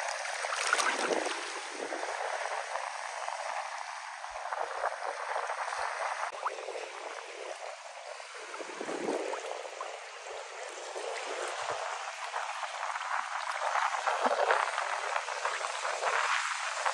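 Water washing and gurgling in uneven surges, with a fine crackle throughout; it swells fullest about a second in and again around nine seconds.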